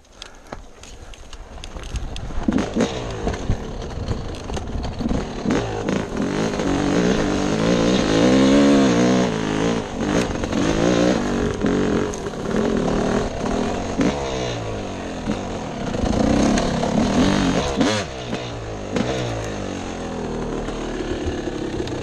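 Yamaha dirt bike engine being ridden on a rough trail, its pitch repeatedly rising and falling with the throttle. Sharp knocks and clatter run through it. It starts quiet and builds over the first two seconds.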